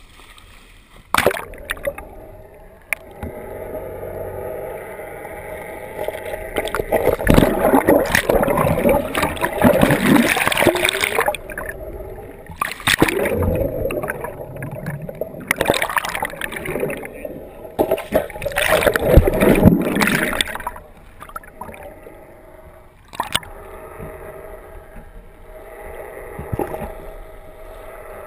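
Seawater rushing, gurgling and splashing against a waterproof action camera as it is dragged through the surface and dunked under, in irregular loud surges with sharp cracks of splashing.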